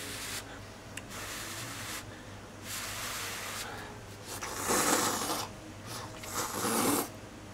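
A man slurping cup noodles off chopsticks: a run of airy, hissing slurps, each under a second, the last two the loudest.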